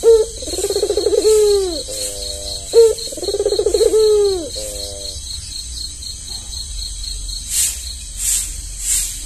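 Albino puter dove (Barbary dove) cooing: two low, rolling coo phrases, each a brief opening note, a purring coo and a falling tail, a couple of seconds apart. Near the end there is a series of short rasping sounds, about one every 0.7 s.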